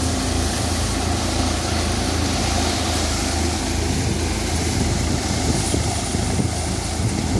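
Tractor-driven multicrop thresher running at steady speed under load as harvested plants are fed into it: a continuous low mechanical hum.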